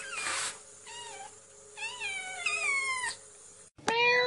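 A cat meowing: several drawn-out meows falling in pitch, then after a brief break a louder, lower meow near the end.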